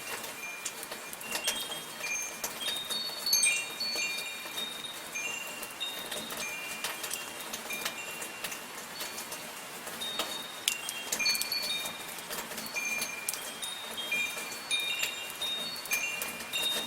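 Metal wind chimes ringing with irregular, overlapping high tones, over a steady hiss of soft rain.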